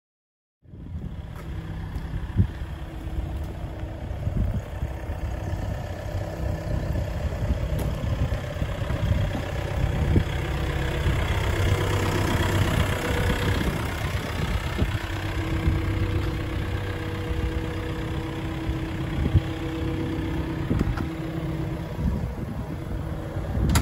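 Volvo ECR88D excavator's diesel engine running steadily at idle, a continuous low rumble with a faint hum above it, cutting in just under a second in. It grows louder for a few seconds around the middle as the rear engine grille comes close.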